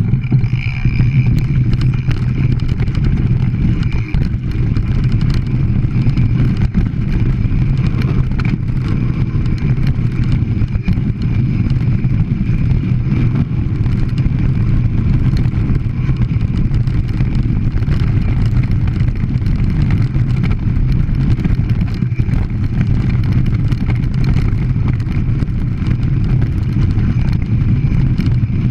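Mountain bike rolling fast down a rough stony track: a steady low rumble from the tyres on loose stone, with scattered clicks and rattles as the bike jolts over the rocks.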